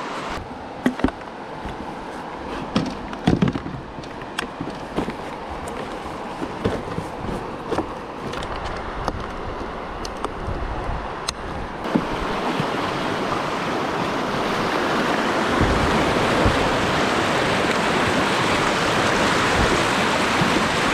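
River rapids rushing around a kayak: for the first twelve seconds scattered splashes and knocks over moving water, then from about twelve seconds in the rush of whitewater swells into a loud, steady noise as the kayak runs into the rapids.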